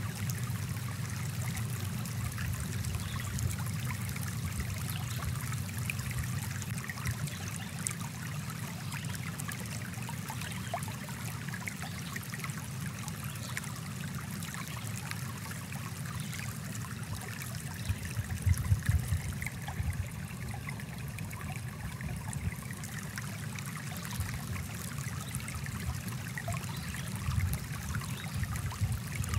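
Small woodland brook flowing over rocks: a steady babble and rush of water, with a brief louder patch of splashing a little past halfway.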